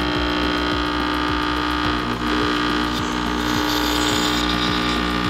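Breville Barista Express espresso machine's vibration pump running with a steady hum, pushing water through the group head to flush it on the machine's first use.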